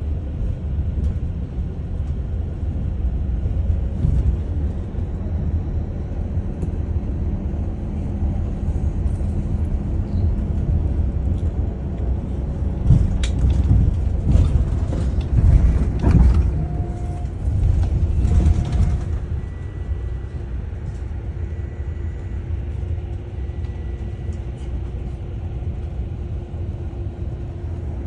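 Daewoo FX116 coach's engine heard from inside the passenger cabin while driving: a steady low engine and road rumble. About halfway through, a few seconds of louder knocks and rattling come over it.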